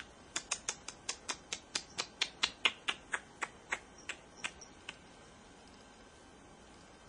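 Ferret dooking: a rapid string of about twenty short, sharp clucks over four to five seconds. They quicken and grow louder toward the middle, then slow and fade out.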